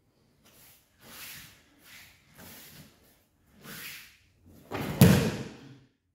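Bare feet shuffling and judogi cloth rustling on the tatami as the judoka grip and turn in. About five seconds in comes a single heavy thud as both bodies hit the mat in a sacrifice throw.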